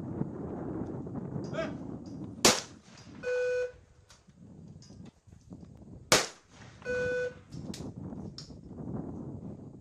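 Two single shotgun shots from over-under trap guns, about four seconds apart. Each shot is followed less than a second later by a short electronic beep.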